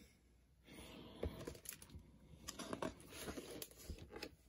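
Faint rustling and small taps of a hardcover picture book's page being turned by hand.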